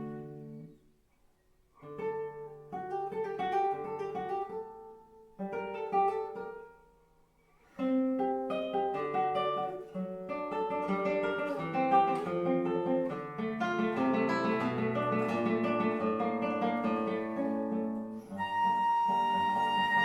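Classical guitar playing an unaccompanied cadenza: a few plucked phrases broken by short pauses, then a long stretch of quick fingerpicked notes. A flute comes back in with a held note near the end.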